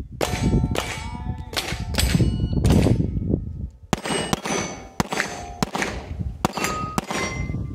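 A fast string of 9 mm Glock 19 pistol shots, about ten in all at uneven spacing. Most shots are followed by the clang of a steel target plate ringing on after the hit.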